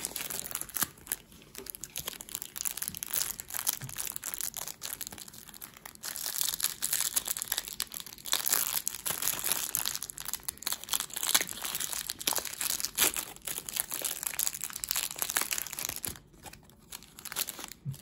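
A hockey card pack being opened by hand: the wrapper and the clear plastic wrap around the cards crinkling and crackling irregularly, dying away about two seconds before the end.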